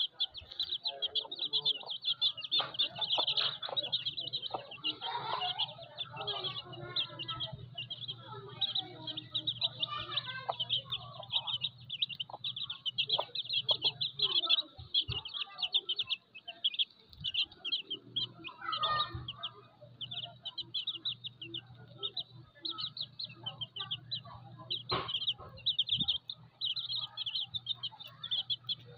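A brood of young chicks peeping rapidly and continuously in high, thin cheeps, with a mother hen's soft low clucks mixed in. A steady low hum runs underneath and drops out for a few seconds about halfway through.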